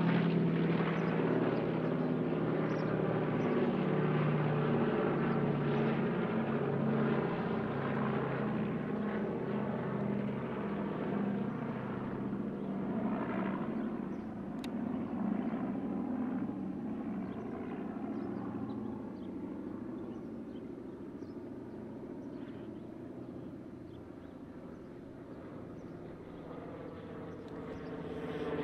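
Boeing B-17G bomber's four Wright R-1820 Cyclone radial engines droning overhead in a steady, beating hum that fades gradually as the plane flies away. Near the end, another propeller plane's engine grows louder as it approaches.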